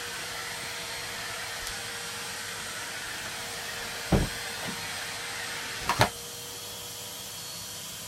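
Henry canister vacuum cleaner running steadily, with a constant tone over its rushing air. Two sharp thumps come about four and six seconds in.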